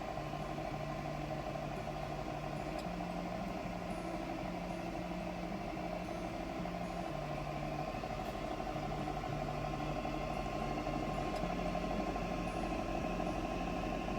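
KitchenArt food dehydrator's fan motor running steadily, a constant whir with a faint hum.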